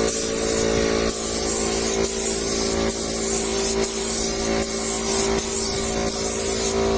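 Compressed-air paint spray gun spraying PU automotive paint in a continuous hiss as it is swept back and forth, with a steady hum underneath.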